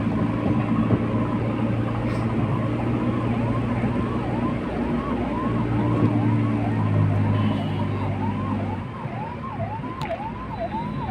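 A diesel engine of the working machinery runs steadily and eases off about nine seconds in. From a couple of seconds in, a warbling electronic alarm repeats about twice a second, the kind of reversing alarm fitted to a tipper or backhoe.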